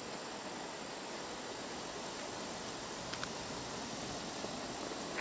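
Steady, even background hiss with no words, broken by a few faint clicks about three seconds in and near the end.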